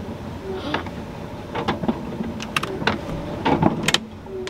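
Windshield wiper motor running on and not shutting off, with irregular sharp clicks, most of them in the second half.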